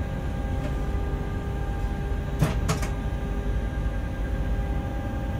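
Freight train heard from inside the locomotive cab, rolling slowly: a steady low rumble of the running gear with a constant hum. A little over two seconds in come two sharp clacks close together, wheels knocking over a rail joint.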